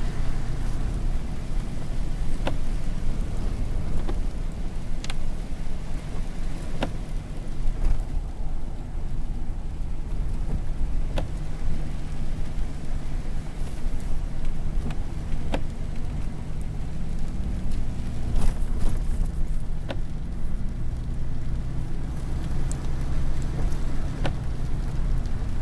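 Engine drone and road noise heard from inside a vehicle driving in the rain, steady throughout, with scattered sharp ticks every second or few.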